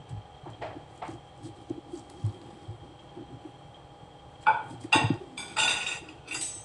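Kitchen knife slicing through a watermelon wedge: a few faint clicks, then a run of loud, crisp crunches near the end as the blade cuts through the flesh and rind.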